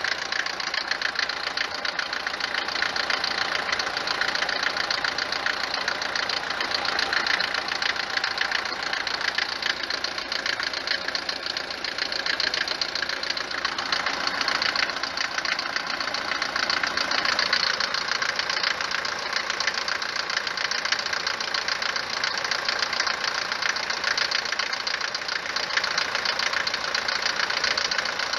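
Mercedes 190 four-cylinder diesel engine idling with a loud, steady clatter. The clatter persists after all four injectors were replaced with new Bosch units, and the mechanic suspects worn, tapered cylinder bores.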